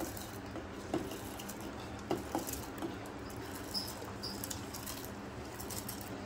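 Handfuls of soaked rice dropped into a pot of hot water: soft patter and a few light taps, spaced about a second apart, over a steady background hiss.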